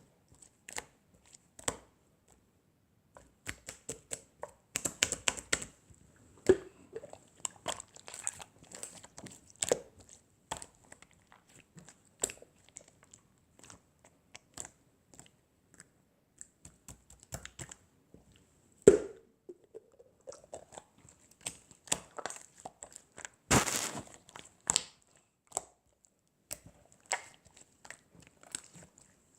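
Irregular small clicks, taps and crinkling of something being handled close to the microphone, louder around the fifth second and near the end, with a sharp knock about two-thirds of the way in. A faint steady high whine sits under it.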